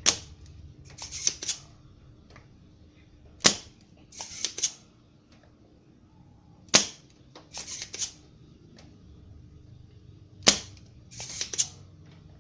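Sharp mechanical snaps repeating about every three and a half seconds, four times, each followed about a second later by a quick cluster of lighter clicks, over a faint steady hum.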